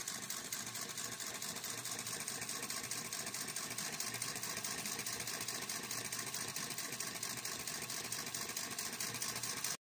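Chinese V2 flame-licker (vacuum) model engine running fast, a rapid, even stream of pops and mechanical clatter from its two cylinders and valve gear. It cuts off abruptly near the end.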